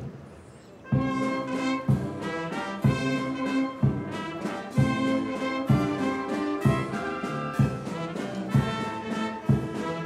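Military brass band striking up about a second in, brass playing a tune over a drum beat about once a second.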